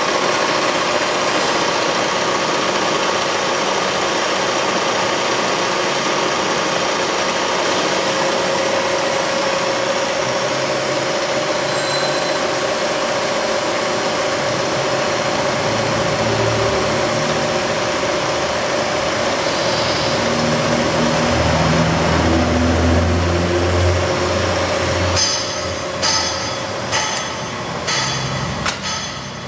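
SUMMIT TLR 106 radial arm drill running: a steady mechanical whir with a constant hum from its motor and gear train. Lower tones come and go in the second half. About 25 seconds in the running sound drops and a series of sharp clicks and knocks follows as the drill head's controls are worked.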